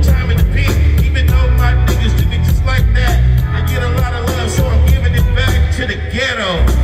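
Live hip hop music over a concert PA, recorded from the crowd: a heavy, booming bass beat with a steady ticking hi-hat and rapped vocals. The bass drops out briefly near the end.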